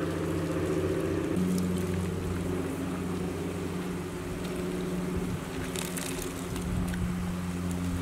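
Water boiling in a large stainless stockpot of blanching greens, bubbling and splashing lightly as leaves are lifted out, over a steady low mechanical hum. A few light clicks come about a second and a half in and again near six seconds.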